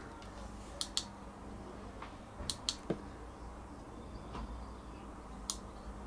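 Handling noise: about six small, sharp clicks and taps, two close together about a second in, three more around the middle and one near the end, over a faint steady hum.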